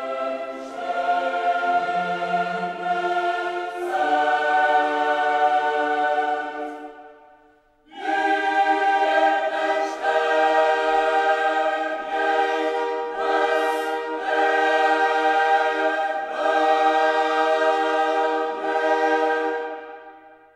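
Background music: a choir singing long held chords. The first phrase fades out about seven seconds in, a new one starts a second later, and it fades out again near the end.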